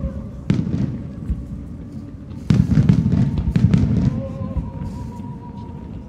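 Aerial fireworks shells bursting in volleys, one about half a second in and a bigger one about two and a half seconds in, with crackling after each. Music with held notes plays along with the show.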